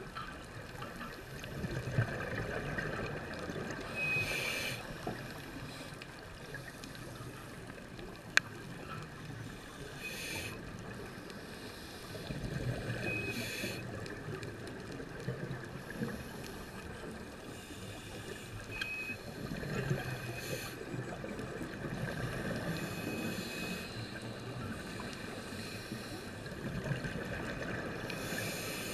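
Scuba diver breathing through a regulator, heard underwater: brief hissing inhalations every several seconds and longer rushes of exhaled bubbles between them. One sharp click about eight seconds in.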